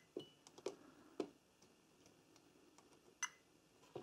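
Light, irregular clicks and taps of multimeter probe tips meeting the solder joints and component legs of a washing machine control board during diode testing, with a brief faint high tone near the start.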